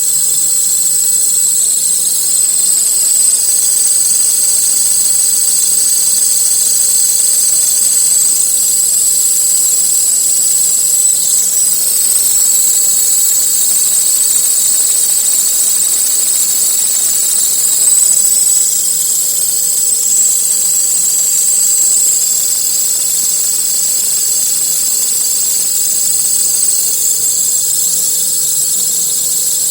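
Belt tensioner pulley on a Skoda Octavia Tour 1.8T turbo four-cylinder engine whistling: a steady high-pitched whistle over the running engine, the sign of a faulty tensioner roller.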